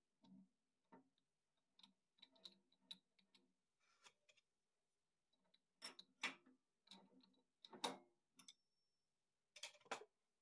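Metal Barracuda 2 lathe chuck being threaded by hand onto the lathe spindle: a string of irregular light clicks and metallic knocks, the loudest about six seconds in, near eight seconds, and again near the end as it seats.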